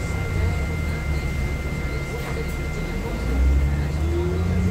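Interior of a NovaBUS LFS city bus on the move, heard from the front seat: a low engine and drivetrain drone with a steady high whine over it. The drone grows louder about three seconds in.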